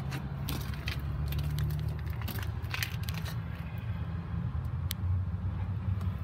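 Handling noise: crackling and rustling clicks as the recording device is moved, over a low steady rumble. There is a sharp single click near five seconds.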